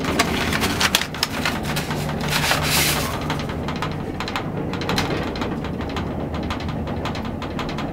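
Small elevator car running in its shaft: a steady low motor hum under constant rattling and rubbing. The rattling is busiest in the first few seconds.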